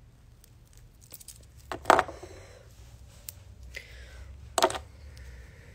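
Handling noise close to a phone's microphone: two loud knocks, about two seconds in and again about four and a half seconds in, with faint rustling and small clicks between them.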